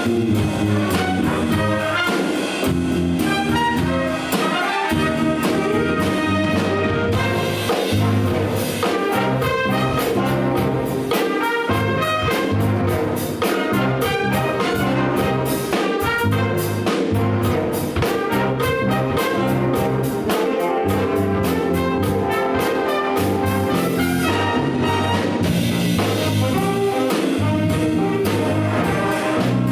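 Big band playing jazz, with trumpets and trombones prominent over a steady beat.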